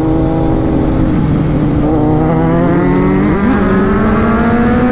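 Two Kawasaki inline-four superbikes, a Z900 and a Z800, running loud together under way. About two seconds in, one engine climbs steadily in pitch as it accelerates over the other's steadier note.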